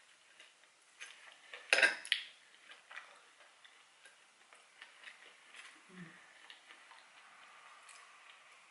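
Metal fork clicking and scraping against a plate while someone eats fries, with one louder clink about two seconds in, and quiet chewing.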